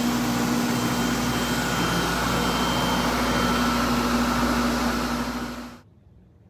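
Water-damage drying equipment running: a commercial dehumidifier and a hardwood-floor mat drying system drawing air through hoses, a steady fan noise with a steady low hum, drying out the water-soaked floor. It cuts off suddenly about six seconds in.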